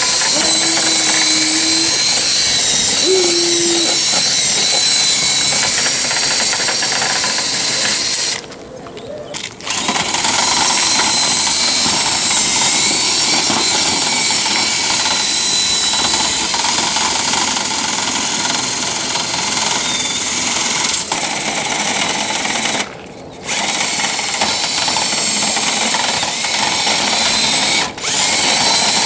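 Power-tool motor of dryer-vent cleaning equipment running with a steady high whine that wavers slightly in pitch. It cuts out briefly three times, about a third of the way in, near the three-quarter mark and shortly before the end, and starts up again each time.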